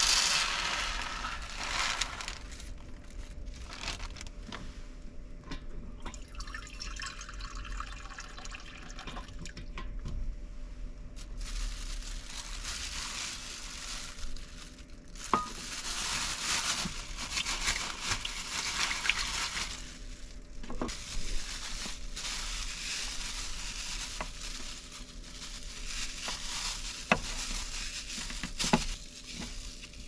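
A thin plastic food bag crinkles and rustles as it is handled and filled with rice and water, with water pouring into it and small clicks and taps.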